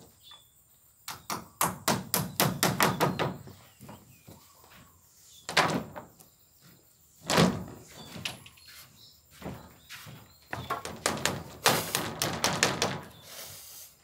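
Hammering on plywood and timber: quick runs of sharp knocks, about five a second, with two heavier, deeper thuds in the middle.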